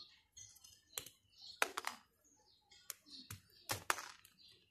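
Pliers clicking and snipping as they strip the insulation off the end of a new copper power-cord wire: a handful of short, sharp clicks spaced irregularly, with the loudest near the end.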